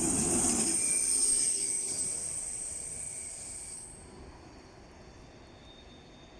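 A train moving away: its low rumble fades within the first second. A high steady whine with a hiss goes on until about four seconds in, then cuts off, leaving faint background noise.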